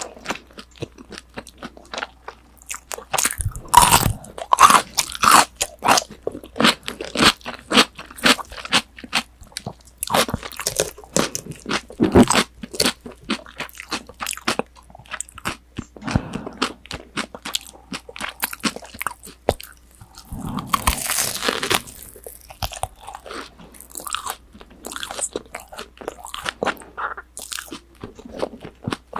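Close-up crunching and chewing of crisp breaded, deep-fried pork cutlet (tonkatsu): irregular crackly crunches, loudest in a run of bites about four seconds in and again about twenty-one seconds in.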